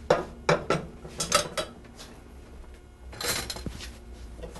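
Kitchen utensils clinking and knocking against pots and dishes: several sharp clinks in the first second and a half, then a brief rattle about three seconds in.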